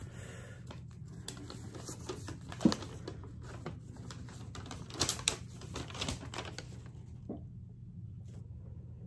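Hands handling a small paper leaflet and cardboard-and-plastic packaging: scattered light taps and clicks, with a sharper click about two and a half seconds in and two more close together about five seconds in, over a steady low hum.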